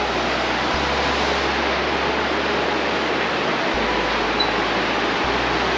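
Trishuli River rushing over rapids below, a steady loud wash of water noise.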